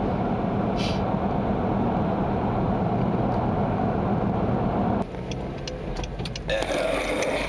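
Car cabin noise while driving: a steady drone of engine and tyres on the road. About five seconds in the sound changes abruptly and gets quieter, and a rustle follows near the end as the camera slides.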